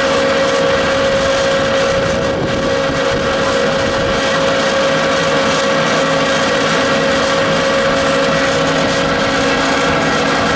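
A vertical ring-die wood pellet mill running steadily under load, pressing out pellets, with a constant mechanical noise and a steady hum.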